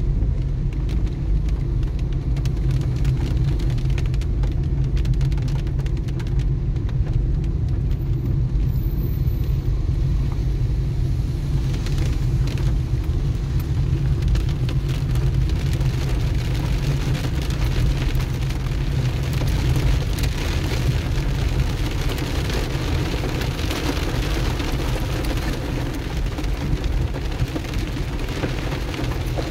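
Rain pattering on a car's windshield and body over the steady low rumble of the car driving on a wet road, heard from inside the cabin. The hiss of rain and wet tyres grows stronger about twelve seconds in.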